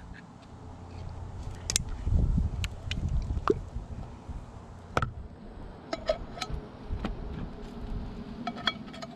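An opened can of condensed cream of chicken soup handled and tipped over a plastic mixing bowl until the soup drops out in one lump: handling noise and a scatter of sharp taps and clicks of the metal can against the bowl.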